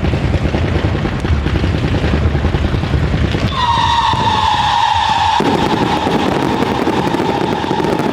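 Fireworks going off in a dense barrage of bangs and crackling. About halfway through, a long whistling tone joins in, falling slightly in pitch and lasting several seconds.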